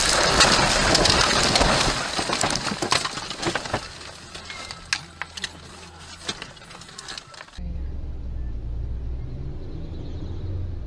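Car crash heard from inside the car: a loud impact, then about two seconds of crunching and scraping as the car goes off the road into bushes, followed by scattered clicks and rattles of glass and debris. About three quarters of the way in it cuts to a steady low car engine hum.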